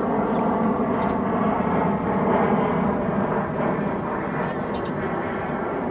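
Steady engine drone, like a propeller aircraft passing overhead, easing off slightly near the end.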